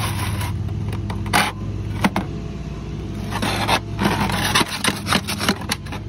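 Flexible aluminium duct rigged as an exhaust pipe on a Nissan Altima crinkling and scraping in repeated sharp bursts as it is handled and dragged on the asphalt. Under it runs the steady hum of the car's engine idling.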